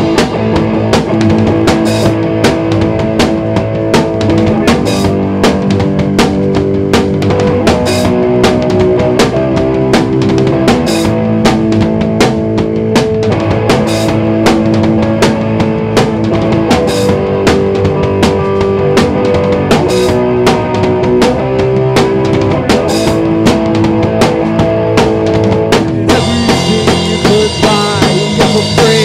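Instrumental break of a garage-pop rock song played by a band: a drum kit beats steadily under held guitar and bass notes, with the high end thinner until about three seconds before the end, when it turns bright and full again.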